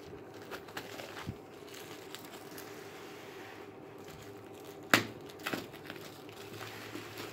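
Plastic bubble wrap crinkling and rustling as it is cut with scissors and pulled open by hand, with a sharp click about five seconds in and a few smaller ones just after.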